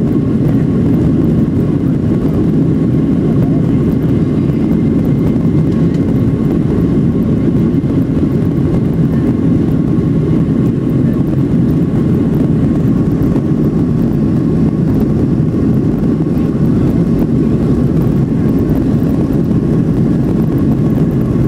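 Jet engines of a Boeing 737 heard from inside the passenger cabin, running at steady power with the airliner still on the ground: a deep, even rumble with a faint steady whine above it.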